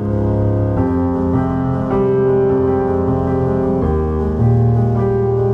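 Background keyboard music: sustained chords that change about a second in and again near four seconds.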